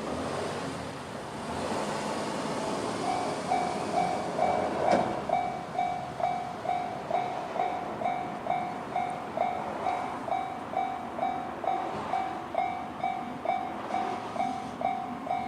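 Japanese railway level-crossing alarm in the JR standard electronic bell tone, dinging evenly a little over twice a second. It starts about three seconds in, after a stretch of rushing noise.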